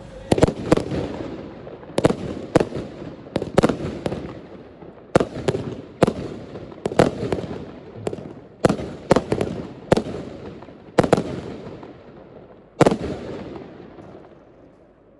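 Blackboxx Erzengel Diavolo consumer firework compound cake firing, heard from about 40 m away: a rapid, irregular series of about twenty sharp bangs over some thirteen seconds, each dying away in an echo. The last shot comes near the end and then fades out.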